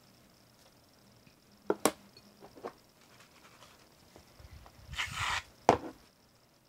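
Two sharp clicks of a utensil against glass or the counter, then a short hiss of an aerosol shaving cream can dispensing foam, followed by a sharp knock.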